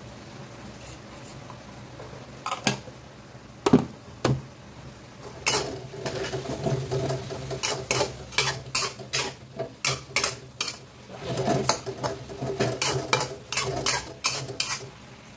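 Metal spatula scraping and clanking against a stainless steel wok while stir-frying green vegetables, over the low hiss of the greens frying. It starts with a few single knocks, then from about five seconds in turns into quick, repeated scrapes, several a second.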